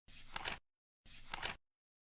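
Flip-clock sound effect marking each second: twice, once a second, a short rustling flip that ends in a sharper clack, with dead silence in between.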